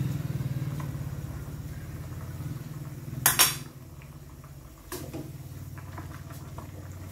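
Sharp metal clinks of kitchen utensils against a stainless-steel saucepan, loudest a quick double clink about three seconds in and a smaller knock near five seconds, over a steady low mechanical hum.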